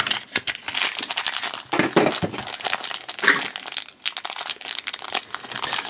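Yellow wrapper of a Grossery Gang 'Yuck Bar' toy pack being torn and crumpled open by hand: dense, rapid crinkling and tearing.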